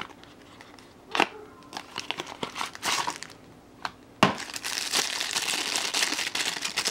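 Thin clear plastic bag crinkling as a phone case is unwrapped from it, with a sharp click about a second in; the crinkling turns dense and louder about four seconds in as the bag is peeled off.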